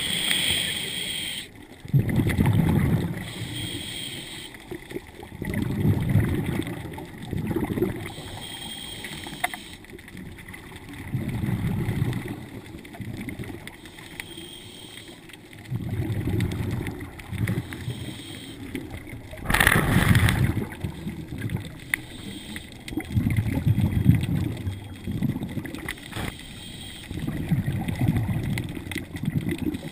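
A scuba diver breathing through a regulator underwater: exhaled bubbles gurgle out in a burst about every four seconds, with a faint hiss of inhalation between them.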